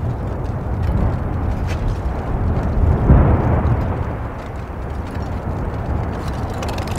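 Erupting volcanic crater: a low, noisy rumble of lava fountaining and bursting gas bubbles, swelling to its loudest about three seconds in.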